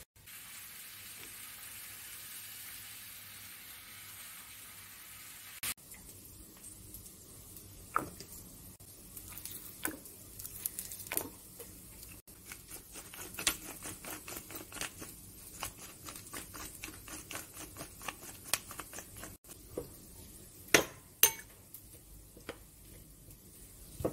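Kitchen food-prep sounds: a steady hiss for the first few seconds, then many light, irregular clicks and taps, with two sharper clinks near the end, as a metal fork stirs diced onion and tomato in a glass bowl.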